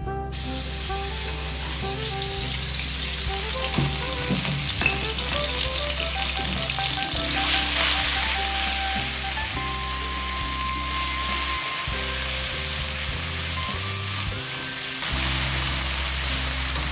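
Squid sizzling as it fries in a hot pan, a steady hiss that starts abruptly, with background music under it.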